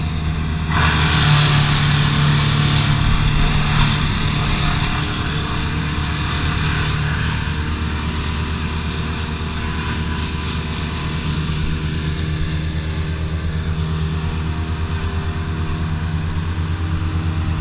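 An engine running steadily, with a few seconds of louder, noisy sound starting about a second in.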